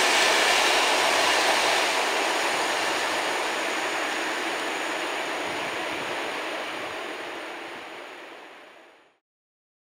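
Freight train of open wagons rolling away over the rails, its wheel and rail noise fading steadily as it recedes, then cutting off abruptly near the end.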